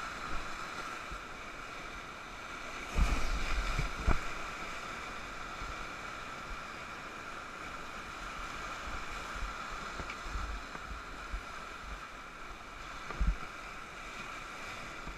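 Whitewater rapids rushing steadily around a raft, with a few dull low thumps, the loudest about three seconds in, another a second later and one more near the end.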